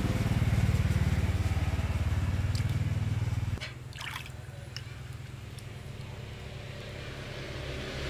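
An engine running steadily with a low hum, which drops to a quieter level about three and a half seconds in; a few brief high chirps follow just after.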